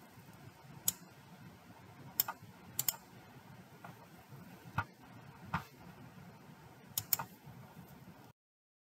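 Computer mouse clicking, about seven separate short clicks spread over several seconds, some sharp and some duller, over faint room hiss. The sound cuts off suddenly near the end.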